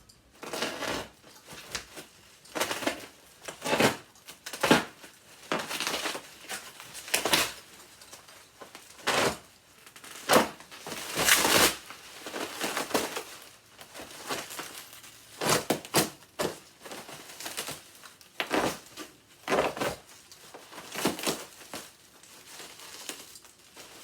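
Plastic bubble wrap being pulled off and handled, crinkling and rustling in irregular handfuls, loudest about halfway through.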